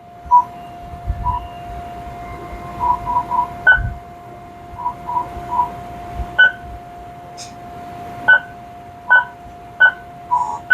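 TurboChef oven's control panel beeping as keys are pressed to get into service mode: about fourteen short beeps, some soft and some louder, over a steady hum from the oven warming up.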